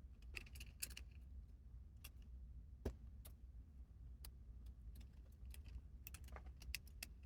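Faint, scattered small clicks and taps of small parts being handled, over a steady low hum.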